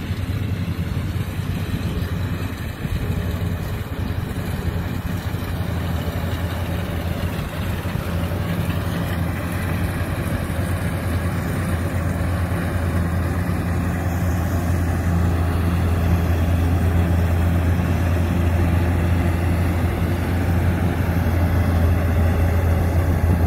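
Kubota DC-105X rice combine harvester's diesel engine running steadily with a low hum as it cuts and threshes rice. It grows louder in the second half as the machine comes closer.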